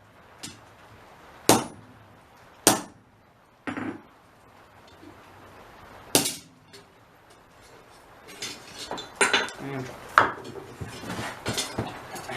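Hammer blows on hot steel over a hot cut tool, cutting a scrap bar part way through. A few single hard, ringing strikes a second or so apart, a pause, then a quicker run of lighter blows and metal clatter in the last few seconds.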